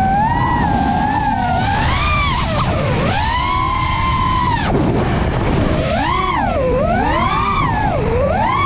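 FPV racing-drone motors whining over a rush of prop and wind noise. The pitch swoops up and down every second or two as the throttle is pushed and eased.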